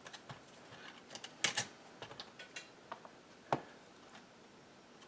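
Light clicks and taps of small plastic parts of a truck's HVAC control panel being handled and pried apart: a close pair about a second and a half in and a sharper single click about three and a half seconds in.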